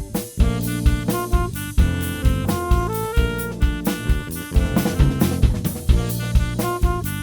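Instrumental jazz played by a quartet of saxophone, guitar, bass and drum kit, the drums keeping a steady beat under a pitched melody line.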